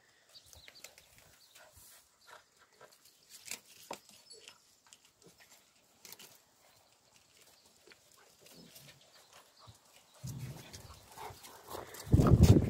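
Two puppies play-fighting on concrete: faint, scattered short scuffles and small puppy sounds. Near the end a much louder burst of noise comes in.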